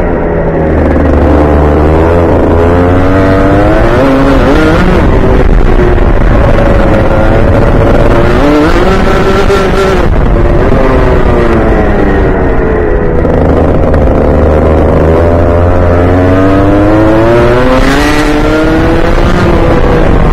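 Rotax Junior Max kart's 125 cc single-cylinder two-stroke engine at racing speed, its pitch climbing as the kart accelerates along each straight and dropping sharply as the driver lifts off for the corners, three times over.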